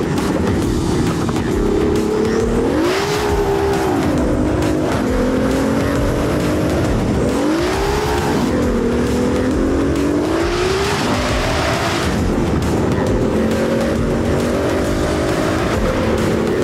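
Twin-turbo Ferrari F12's V12 engine at full throttle on a race track, its pitch climbing and then dropping sharply several times as it works up through the gears and lifts for corners.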